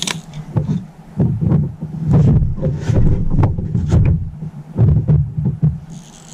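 Irregular low thumps and rumbling picked up through a small plastic boat's hull, with brief scratchy sounds in between.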